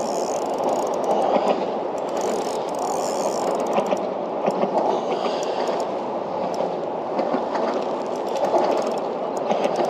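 Spinning fishing reel whirring and clicking steadily while a hooked fish is played on light line.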